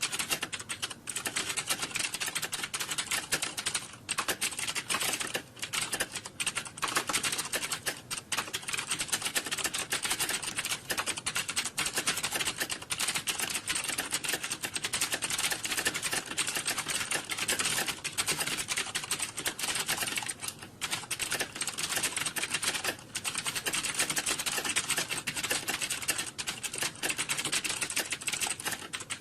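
Computer keyboards being typed on rapidly: a dense, continuous clatter of keystrokes with only a few brief pauses.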